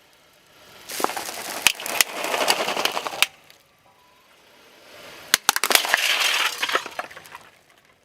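A car tyre rolling over and crushing crunchy objects. There are two bursts of crunching and cracking, each about two and a half seconds long and full of sharp snaps: one starting about a second in, the other about five seconds in.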